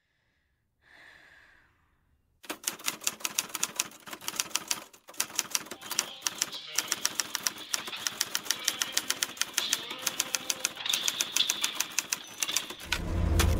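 Typewriter keys clacking in fast, irregular strokes, starting about two and a half seconds in and stopping just before the end. A faint short breathy sound comes about a second in, and deep music with heavy bass starts right at the end.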